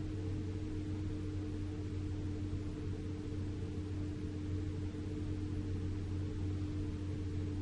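Steady low drone of a vehicle's engine and road noise heard from inside a moving vehicle, with a constant tone running through it and no change in speed or gear.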